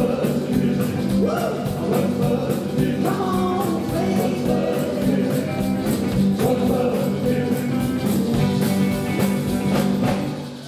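Live rockabilly band playing rock 'n' roll: electric guitars, drum kit with a steady beat, and a man singing. The music stops near the end.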